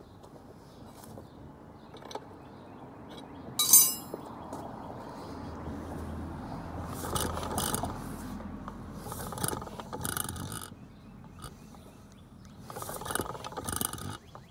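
Century-old Ideal stationary gas engine being turned over by hand at its flywheel: irregular mechanical clanking and whirring, with one sharp, loud knock about four seconds in.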